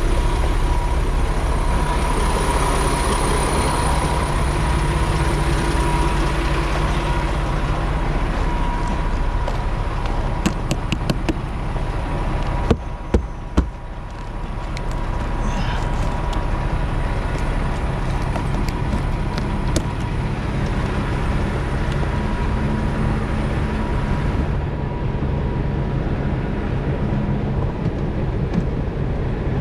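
Semi truck's diesel engine idling steadily, with a few sharp clicks and knocks about halfway through.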